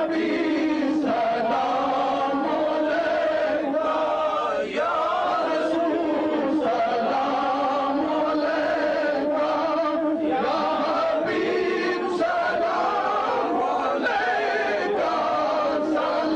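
A group of voices chanting together in a steady, unbroken devotional chant.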